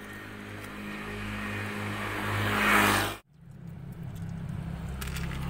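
A passing motor vehicle growing steadily louder for about three seconds, then cut off abruptly. A steady low hum with a few faint clicks follows.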